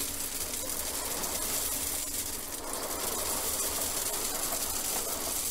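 Washed 3/4-inch crushed stone being poured into a plastic barrel, a steady clatter of many small stones landing on the stone already inside.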